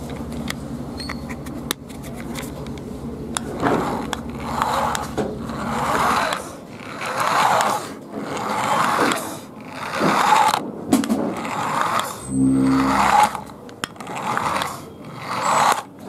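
Small electric drive motor of a toy remote-control car whirring in repeated bursts, rising and falling about every one to two seconds as the remote's button is pressed. A short buzzing tone sounds about twelve seconds in.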